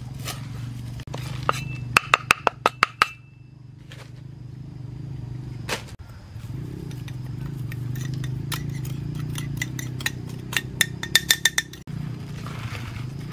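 Steel cleaver chopping chives on a wooden board: quick runs of sharp knocks with a metallic ring, the fastest run about two seconds in. A single strike comes near the middle, a second quick run of ringing clicks follows later, and a steady low hum runs underneath.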